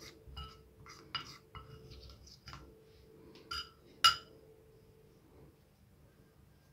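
Metal spoon clinking against a small ceramic dish while stirring cornstarch and hot water into a paste: a string of light ringing clinks, the loudest about four seconds in.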